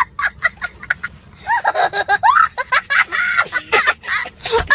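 A young child laughing: quick short bursts of laughter for about the first second, then longer, high-pitched laughs that rise and fall.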